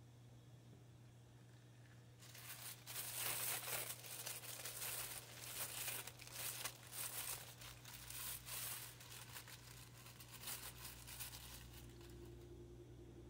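Thin clear plastic bag crinkling and rustling in the hands as the monocular is worked out of it. It starts about two seconds in, comes in quick irregular crackles, and dies down near the end.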